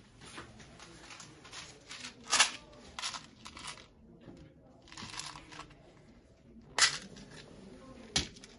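Crinkling of a small clear plastic packet of spare glass fuses being handled and opened, with a few sharp clicks, the loudest about two and a half seconds in and near the end.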